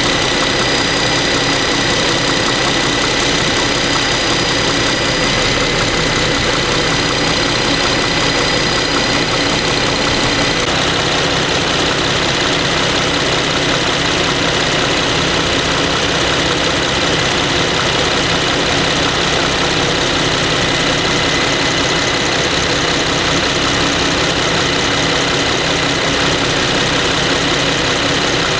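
Infiniti Q70's 3.7-litre V6 (VQ37VHR) idling steadily after warming up, with a ticking, tapping noise on top that the owner takes to be normal and inherent in this engine.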